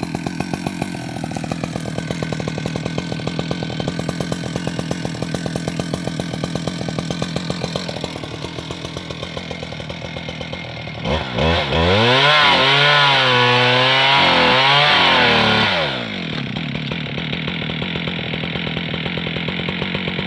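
Two-stroke chainsaw idling with a steady rapid chug, then revved to full throttle about eleven seconds in and held for some five seconds, its pitch wavering as it cuts into the base of a tree trunk, before dropping back to idle.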